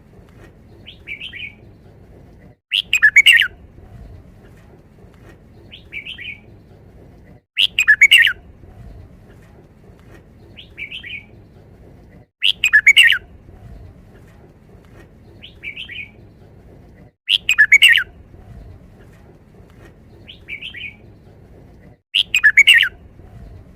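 Red-whiskered bulbul singing the same short, loud five-syllable song phrase five times, about every five seconds. A softer, brief note comes between each pair of phrases.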